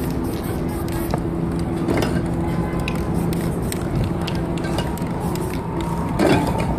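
Aerosol spray-paint can hissing in short bursts as paint is sprayed onto a board, over steady street din and background music.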